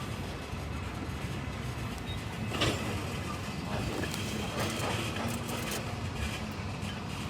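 Slow-moving freight train rolling by with a steady low rumble, a single sharp clank about two and a half seconds in and a few lighter clicks after it.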